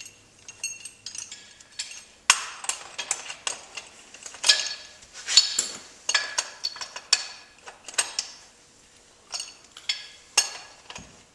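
Metal parts and hand tools clinking and clanking in an irregular run of sharp, ringing knocks as a frost-proof yard hydrant's head is put back together.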